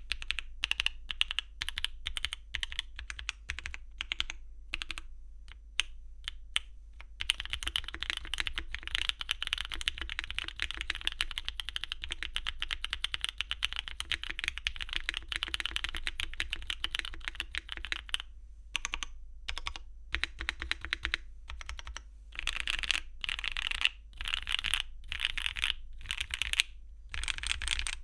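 Typing on a mechanical keyboard: a QwertyKeys Neo75 Cu gasket-mount board with Gateron LongJing Tea tactile switches and Cherry-profile double-shot ABS keycaps. Scattered keystrokes at first, then a long run of fast, steady typing, then short bursts of rapid keypresses with brief pauses between them.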